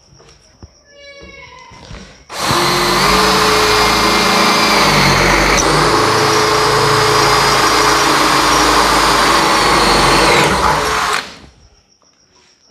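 Bosch GSB 180 LI 18 V cordless drill boring an 8 mm hole through a 16-gauge iron pipe: a steady high motor whine over grinding metal noise. It starts about two seconds in, runs for about nine seconds and stops sharply near the end.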